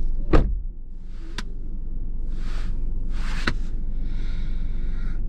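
A car door shutting with a single solid thump about half a second in, over the steady low hum of the idling car. Lighter clicks and soft rustles follow.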